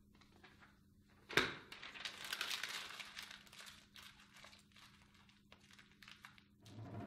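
A sheet of paper ripped out with one sharp tear about a second and a half in, then crumpled by hand into a ball. The crinkling is loudest just after the tear and dies away over a few seconds.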